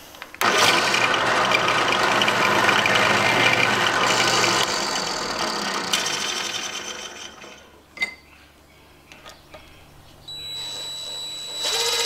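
Cordless drill-driver running at speed for about six seconds as it drives into a wooden block, then winding down, with a sharp click about eight seconds in. Near the end the drill-driver runs again slowly under the trigger with a steady high whine while it drives a screw into a brass drawer latch.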